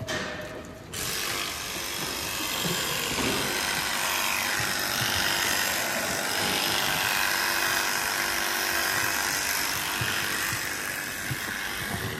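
Cordless electric animal clippers switched on about a second in and running steadily as they trim the hair of a dairy cow's tail switch.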